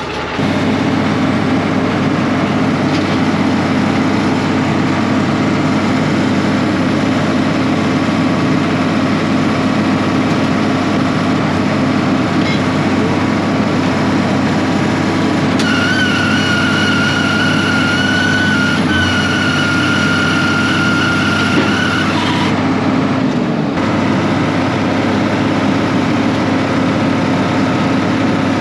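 Tractor engine running steadily under load while pulling a hay baler. A high steady whine joins for about six seconds around the middle.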